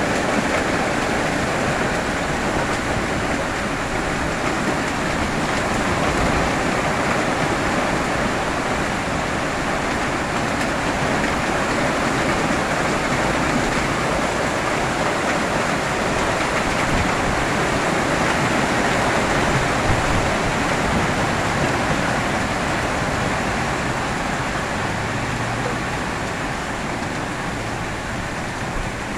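Hail falling hard: a dense, steady hiss and patter of hailstones striking the ground and parked cars.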